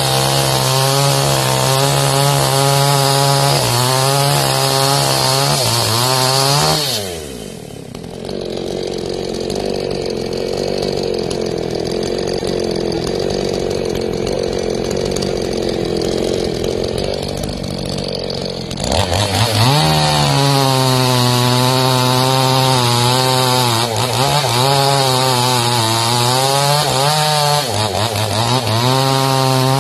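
Chainsaw at full throttle cutting mangosteen wood, its pitch wavering as the chain loads in the cut. About seven seconds in it drops back to a lower, quieter idle for around twelve seconds. It then revs up again and cuts on.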